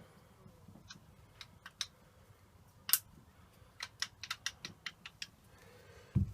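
Metal parts of a Lewmar 34 winch clicking and tapping as the shaft is turned and worked to seat on its splines. There is one louder click about three seconds in, then a quick irregular run of light clicks between about four and five seconds.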